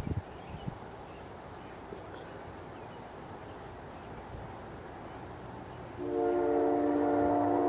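Diesel locomotive air horn sounding a loud, sustained chord of several notes, coming in suddenly about six seconds in.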